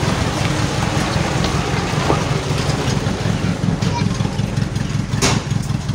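Truck engine idling steadily, with a short sharp noise about five seconds in.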